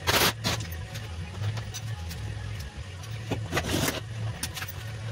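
Short, harsh bursts of hand-tool noise, each under half a second, one right at the start and a longer one about three and a half seconds in, with fainter ones between, from work on a Yamaha Phazer snowmobile engine being bolted into an ultralight's motor mount. A steady low hum lies beneath.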